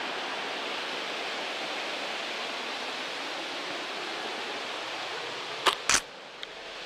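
Steady rush of water pouring from a pipe outlet over rocks. Near the end come two sharp knocks of the camera being handled, and the rushing then drops quieter.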